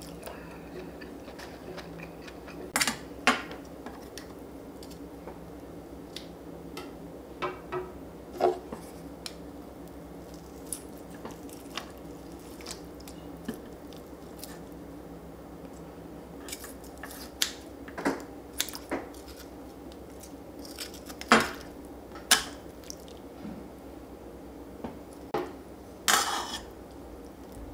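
Spoon and chopsticks clinking and tapping irregularly against a soup bowl and dishes, with quiet chewing between the clinks, over a low steady hum.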